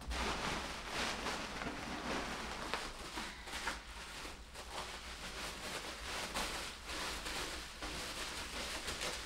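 Silver bubble-wrap packaging crinkling and rustling continuously as it is handled and unwrapped by hand.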